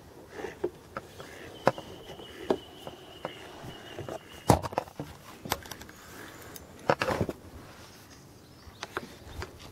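Irregular knocks and clicks of fishing tackle being handled close to the microphone, the loudest about halfway through and a quick cluster a little later.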